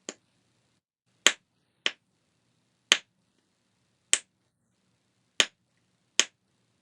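Snapper fidget toy being snapped: seven sharp, separate clicks, irregularly spaced roughly a second apart.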